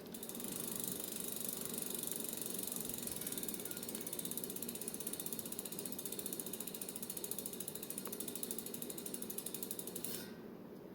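Bicycle rear hub's freewheel pawls ticking rapidly and evenly as the wheel spins freely while it is checked for wobble. The clicking stops abruptly about ten seconds in.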